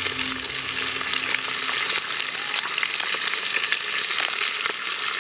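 Soft-shelled turtle sizzling in a metal pot over a wood fire: a steady hiss with many small crackles throughout.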